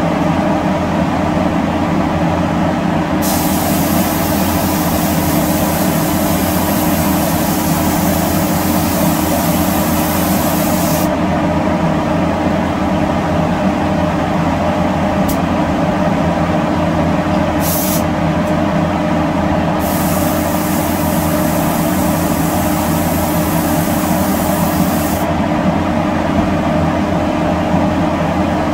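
Spray gun hissing as it lays a spray-chrome silvering coat onto a black-based bumper overrider: one long burst of about eight seconds, two short blips, then a second burst of about five seconds, over a loud steady machine hum.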